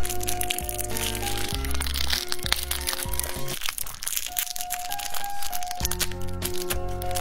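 Crackling and crinkling as dried fruit and nut toppings are added to a cup of yogurt, over background music whose bass line drops out for a couple of seconds about halfway through.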